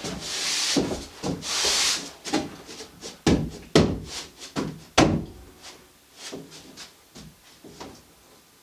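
Two scraping rushes, then a string of sharp wooden knocks and clatter that grow lighter and sparser toward the end: wood being handled and knocked together.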